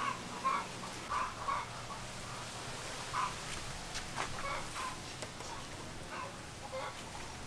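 Chickens clucking in short, repeated calls, with a few light clicks about four seconds in.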